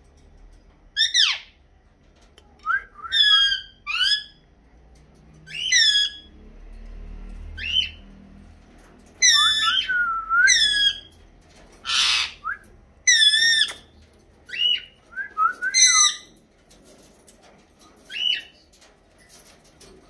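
Caged pet parrots calling: a string of short, shrill calls, many sliding up or down in pitch, coming in bursts every second or so. About twelve seconds in there is one harsh, rasping screech.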